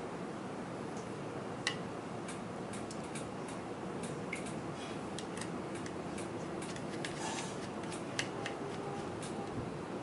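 Scattered light clicks and ticks of a small screwdriver driving screws into a drive bracket on a 2.5-inch SSD, over a steady low hiss. Two sharper clicks stand out, about two seconds in and about eight seconds in.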